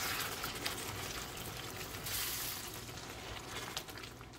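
Clam juice pouring from a glass bottle into a hot pan of melted butter and onions: a steady trickling pour, with a louder gush about two seconds in, getting quieter toward the end.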